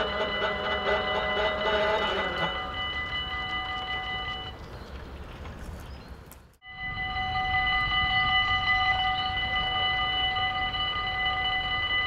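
Dutch level-crossing bells ringing steadily over the fading rumble of a passing train; the ringing stops about four and a half seconds in. After a brief drop-out the crossing bells ring again and keep going.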